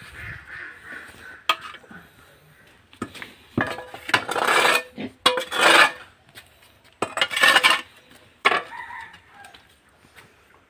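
Metal hoe blade scraping and scooping muck off a pig pen floor, in several strokes of about a second each with sharp knocks between them.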